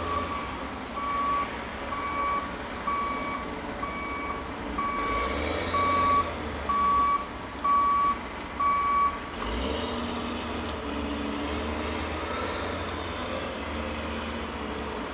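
Backup alarm on heavy equipment at a mulching yard, beeping steadily about once a second and stopping about nine seconds in, over the low rumble of diesel machinery.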